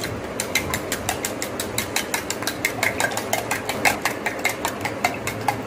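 Eggs being whisked in a steel bowl with a metal utensil: quick, even clinks of metal on the bowl, about six or seven a second.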